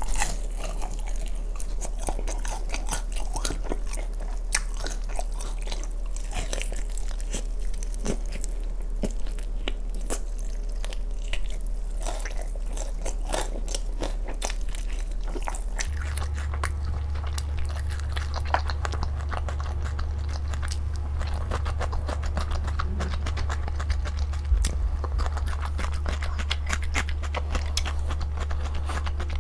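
Close-miked biting and crunchy chewing of sauced fried chicken: many irregular crisp crunches and wet mouth sounds. A low steady hum runs underneath and shifts slightly higher about halfway through.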